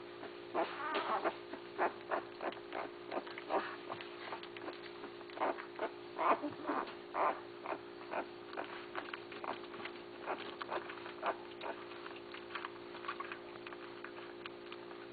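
Basset hound puppies squeaking, whimpering and grunting, many short calls in an irregular stream, over a steady low hum.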